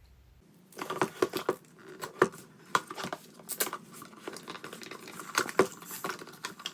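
Packaging of an Apple World Travel Adapter Kit being opened by hand: irregular crinkling, tearing and sharp clicks of paper and plastic, starting about half a second in.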